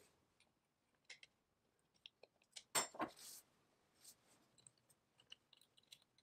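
Faint, scattered small clicks and light taps, with a louder short clatter about three seconds in.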